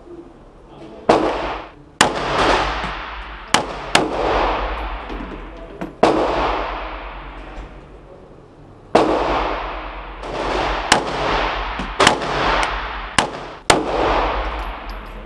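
Handgun shots in an indoor shooting range: about eleven sharp bangs at uneven intervals, some in quick pairs, each with a long echoing decay off the range walls.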